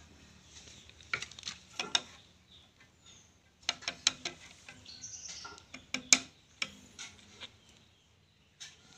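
Scattered light clicks and knocks at irregular moments, some in quick clusters, over a faint low hum.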